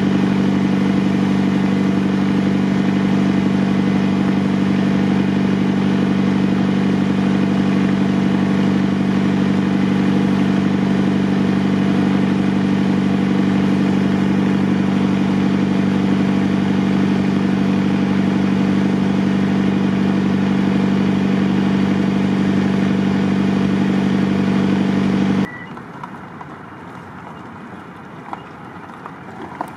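An engine running at one steady speed, a constant hum with several fixed tones that never changes in pitch or loudness, cuts off abruptly near the end. A much quieter outdoor background with a few faint ticks follows.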